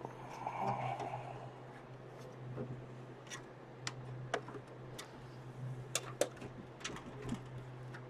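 Scattered sharp clicks and light knocks of metal and plastic computer-case parts being handled and worked loose, over a steady low hum.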